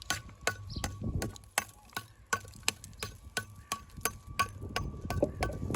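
Steady, evenly spaced ticking, about three ticks a second, like a clock.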